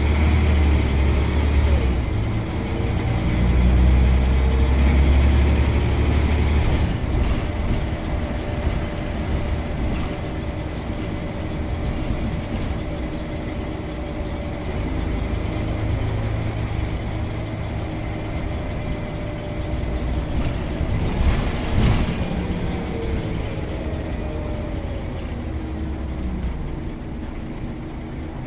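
Scania L94UB bus's nine-litre five-cylinder diesel engine heard from inside the saloon, pulling hard with a loud low drone for the first several seconds, then settling to a quieter, steadier run. Light body rattles and a sharp knock come about 22 seconds in.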